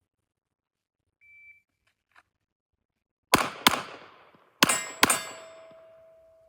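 A shot timer beeps once. After a pause, a Glock 19 9mm pistol fires two quick shots, then, after a short gap for a reload, two more quick shots. A steel target rings on with a long fading tone after the second pair.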